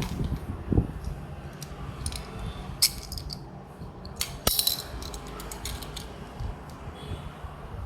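Light clicks and clinks of a small die-cast toy car and its packaging being handled, with a quick cluster of taps about halfway through.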